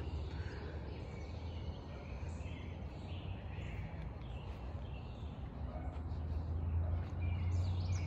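Backyard ambience: faint scattered birdsong over a steady low rumble, which grows a little louder near the end.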